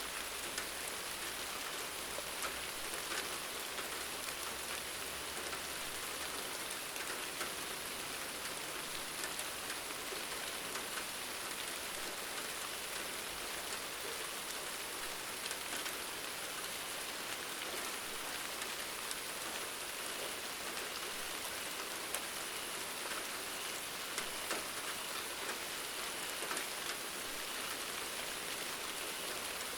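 Steady rain falling on a surface, a constant hiss with many small drop ticks scattered through it.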